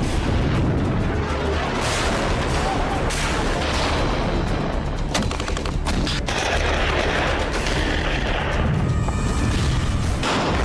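Battlefield gunfire: repeated shots and bursts with some blasts, over a music bed.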